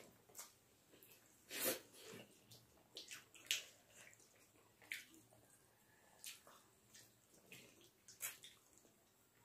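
Scattered wet smacks, slurps and chewing from people eating rice and chicken curry by hand, with the loudest smacks about one and a half and three and a half seconds in.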